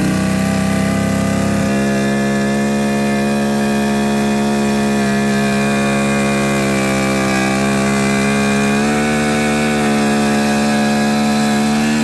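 Force 150 hp five-cylinder two-stroke outboard held at full throttle against a dyno load, running at a steady pitch. It is down on power, making only about 115–120 horsepower, and a fresh fuel supply has not cured it.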